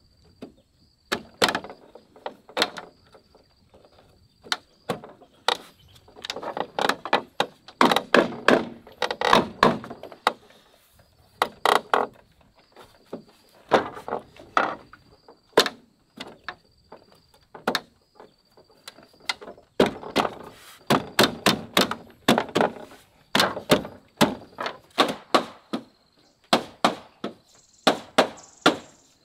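Hollow bamboo poles knocking and clattering while a bamboo railing is handled and fitted: many irregular sharp knocks, some in quick runs.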